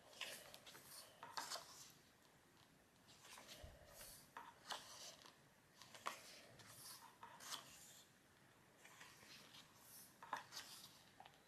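Pages of a glossy photo book being turned and smoothed by hand: a string of faint, brief paper swishes and rubs, roughly one a second.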